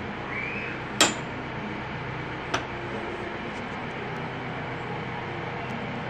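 Metal clink of the D Hoop feeder's hoop and latch hardware as the hoop is moved on its wall brackets: one sharp, ringing clink about a second in and a lighter click about a second and a half later, over a steady background noise.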